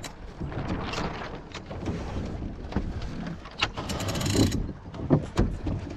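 A small sailing dinghy under way: water washing along the hull and wind noise, with a louder rush about three and a half seconds in. A few sharp knocks and clicks from the rigging and blocks come near the end.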